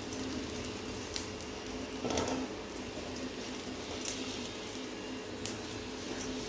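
Whole spices frying in a little oil in a metal kadai, stirred with a silicone spatula: a faint steady sizzle with soft scrapes and light clicks against the pan, one louder scrape about two seconds in. A steady low hum runs underneath.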